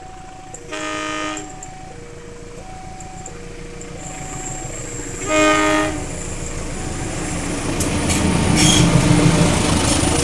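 An approaching diesel locomotive sounds its horn twice, a short blast about a second in and a louder one about five seconds in, over a level-crossing warning bell ringing in two alternating notes. The rumble and wheel clatter of the train grow until the locomotive passes close by near the end.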